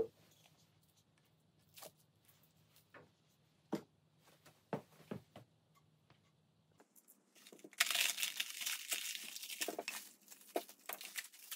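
A few faint knocks of handling, then, from about eight seconds in, plastic stretch wrap being slit with a utility knife and torn and crinkled off a wrapped wooden bowl.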